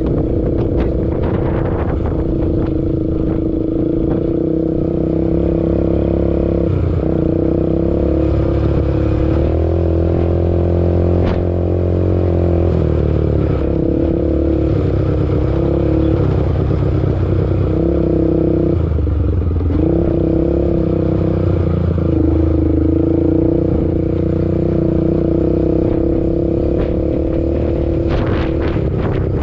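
ATV engine running continuously under throttle; its pitch dips and climbs back several times as the throttle is eased off and opened again.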